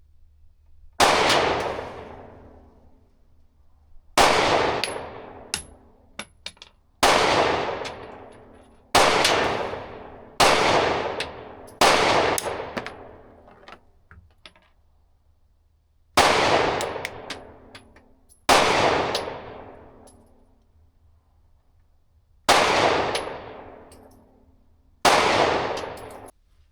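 Glock 43X 9mm pistol firing ten single shots slowly, one at a time, about one and a half to four seconds apart, each with a long echoing tail. A few faint light clinks fall between some of the shots.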